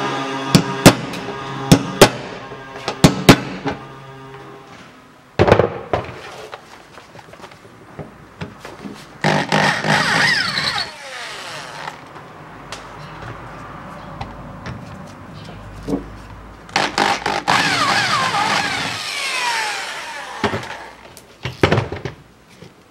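Hammer striking a punch against the fuel filler door hinge rivets, a handful of sharp metal taps in the first few seconds and one more at about five seconds, over background music. Later come two bursts of metallic scraping and squeaking as the loosened hinge is worked free.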